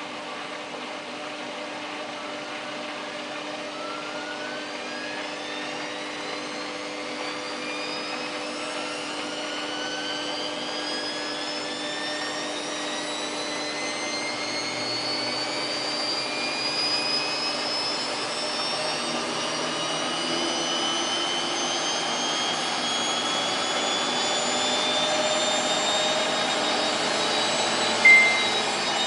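Samsung WF8804RPA washing machine spinning up in service-mode spin test: the motor and drum whine rises slowly and steadily in pitch and grows a little louder as the drum accelerates. A short high beep from the machine sounds near the end.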